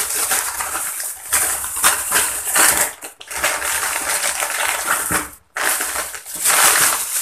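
Thin plastic carrier bag and instant noodle packets rustling and crinkling as the packets are pulled out and handled, in several bursts with short pauses between.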